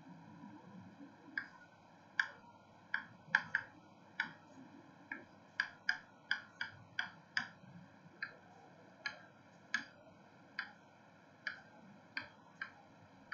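Chalk clicking and tapping against a blackboard while words are written: about twenty sharp, irregular clicks, some in quick pairs, beginning about a second and a half in.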